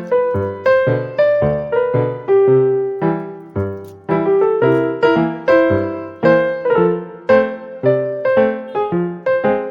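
Background piano music: a melody of single struck notes, about two a second, each fading after it is played.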